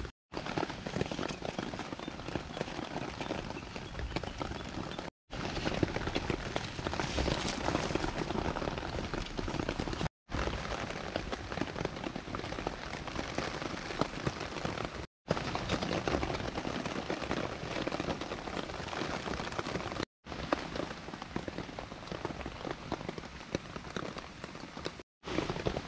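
Steady rain pattering on a camping tarp overhead, a dense hiss full of fine drop ticks. It drops out in short silent gaps about every five seconds.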